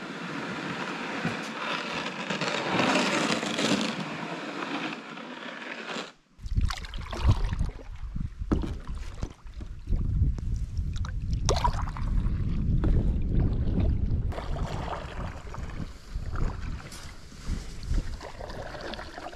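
Canoe paddling: paddle strokes splashing and gurgling in the water, with wind buffeting the microphone. The first six seconds are a steady rush of water before a cut to the paddling.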